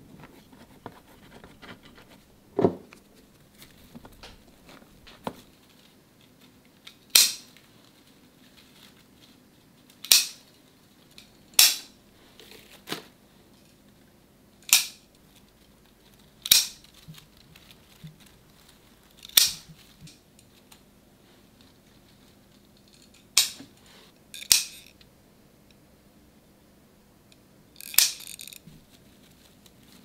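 Long thin-bladed trimming scissors snipping small plant stems: about nine sharp, crisp snips, each a second or several apart. A duller knock comes about two and a half seconds in.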